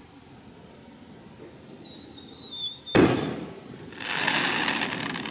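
A firework shell whistling as it climbs, the whistle falling slowly in pitch, then bursting with a sharp bang about three seconds in, followed a second later by a crackling shower.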